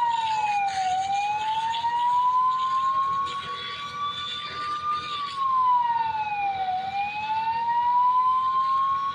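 Emergency vehicle siren wailing. Its pitch drops over about a second, then climbs slowly back up over about four seconds, twice.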